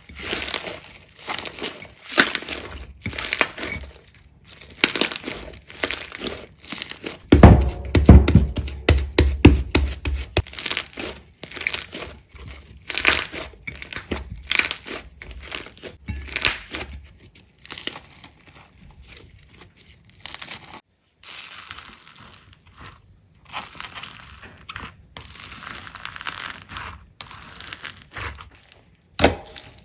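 Slime being squeezed and pressed by hand, making irregular crackling, crunching and popping clicks, densest and loudest about a quarter of the way in.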